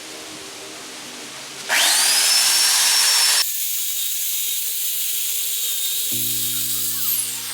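Craftsman 18-inch electric chainsaw revving: its motor whine rises quickly to a high, steady pitch about two seconds in and cuts off abruptly a second and a half later. A quieter steady hiss follows, with background music.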